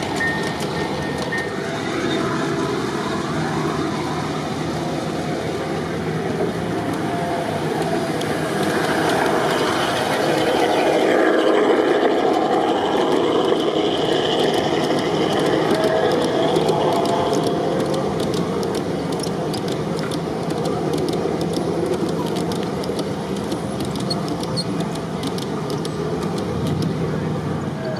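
G-scale model trains rolling on outdoor track: a steady rumble of wheels on rail that swells around the middle as a train of passenger cars passes close over a steel truss bridge, with quick clicks of wheels over the rail joints in the second half.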